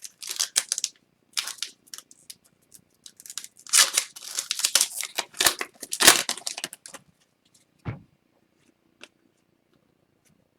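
A trading card pack's wrapper being torn open and crinkled, in irregular rustling bursts that are busiest in the middle, then a few small clicks as the cards are handled.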